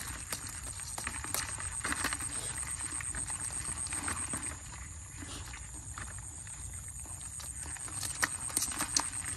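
Irregular clicks and knocks of a woven bamboo fish trap being shaken and tapped against a plastic bucket as small fish are emptied into it, easing off about halfway and picking up again near the end. A steady high-pitched tone runs underneath.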